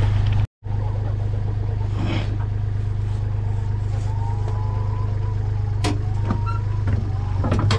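Tractor engine running steadily as a loud, even low hum, with a few sharp clicks later on. The sound cuts out completely for a moment about half a second in.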